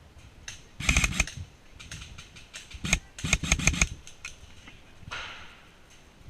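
Airsoft electric gun (AEG) firing short bursts of rapid shots: a burst about a second in, a single shot near three seconds, then another burst.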